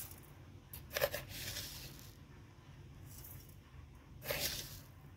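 Granulated sugar being poured onto chopped raw mango and onion in a steel bowl: soft, hissing rustles in a few short spurts, loudest about a second in and again after four seconds.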